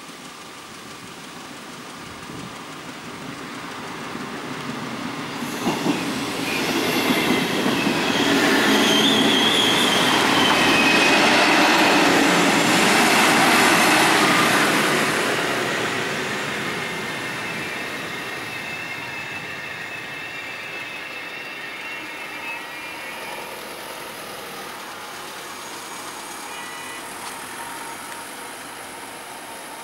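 A two-car ALe 642 electric multiple unit passes over a level crossing. Its noise builds from a couple of seconds in, with sharp clacks of the wheels over the rails and a brief high squeal as it goes by, and then fades away over the last half.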